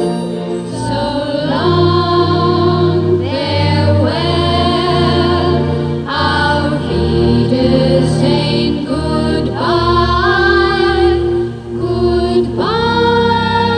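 Music with choral singing: several voices holding long, slightly wavering notes, with a new sung phrase entering every few seconds.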